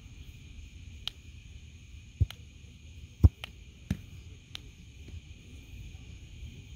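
A volleyball being struck during a rally: about six sharp slaps and thumps over four seconds, the loudest a little past two and three seconds in. Underneath, a steady cricket chorus.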